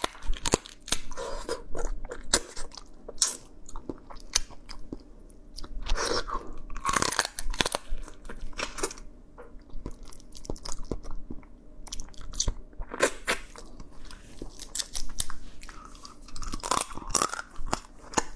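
Close-up crunching and chewing as a whole crab's body and legs are bitten into, the shell cracking in many irregular sharp crackles, with a few longer wet sucking and slurping stretches in between.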